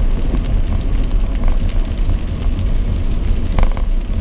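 Steady low rumble of a vehicle driving on a wet road, heard from inside the cab, with rain on the windshield and a few sharp taps, the loudest about three and a half seconds in.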